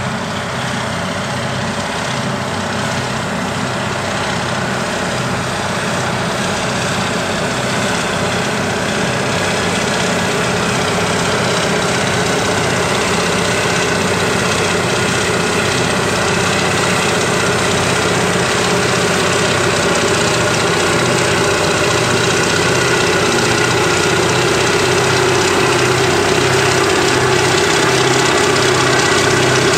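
Caterpillar 637 twin-engine scraper's diesel engines running hard while it loads dirt in the cut, growing steadily louder as the machine comes closer.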